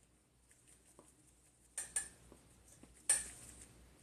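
A metal fork clinking and scraping against a plastic seasoning shaker and a plastic tub while working taco seasoning out of the shaker. There are two quick clinks just before two seconds in and a sharper clatter about three seconds in.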